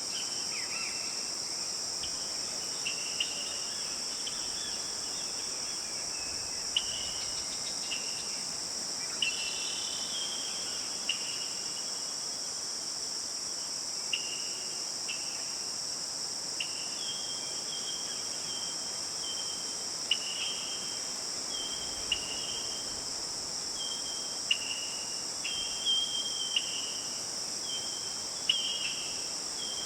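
A steady, high-pitched insect chorus, like crickets, runs under short bird chirps that come every second or so, more regularly in the second half.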